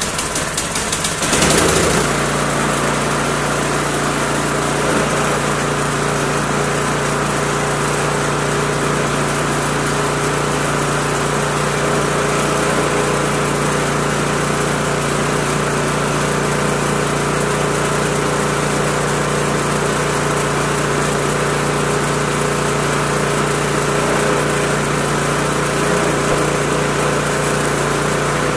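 Gas snowblower engine starting up, running unevenly for the first two seconds, then settling into a steady run.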